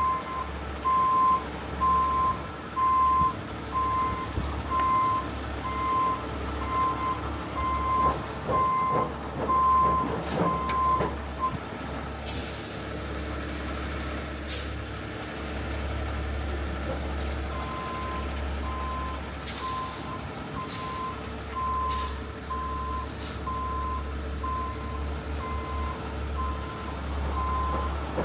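75-ton heavy rotator tow truck backing up during a multi-point turn: its reverse alarm beeps steadily about one and a half times a second over the rumble of its diesel engine, stops for several seconds, then starts again past the halfway mark. Several short, sharp air hisses from the truck's air system come during the pause and as it begins reversing again.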